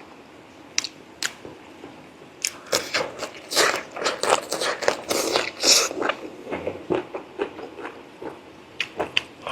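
Close-up eating sounds of braised pork leg: two sharp clicks early on, then a run of chewing in the middle, with a few more clicks near the end.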